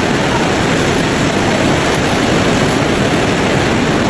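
Hailstorm with hail and rain pelting down: a loud, steady, dense patter of many small impacts.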